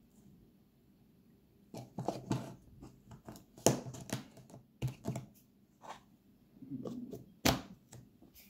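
A small turtle's claws clicking and scraping on the floor of a plastic tub as it walks. Irregular taps, some of them sharp and loud, begin about two seconds in.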